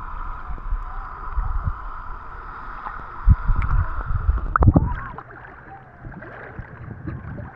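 Shallow sea water washing and lapping, with low wind rumbles on the microphone. It turns quieter about five seconds in.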